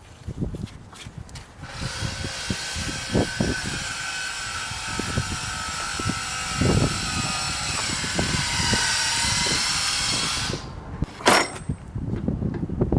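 Small electric power tool running steadily for about nine seconds, then stopping suddenly. Low knocks of metal parts being handled sound throughout, with a sharp click near the end.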